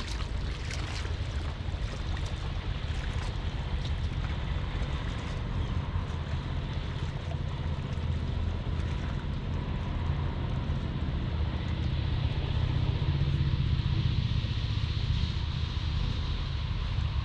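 Steady low rumble of wind on the camera's microphone, with water splashing and lapping around an inflatable packraft being paddled.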